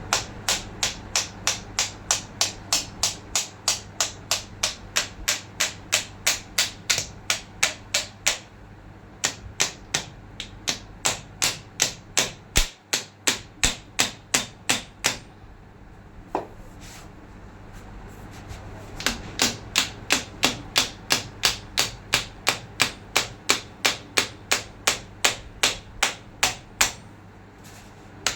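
Hammer tapping on metal in rapid, even strokes of about three a second, in three long runs with short pauses between them, as the end cup of a forklift steering cylinder is driven into place.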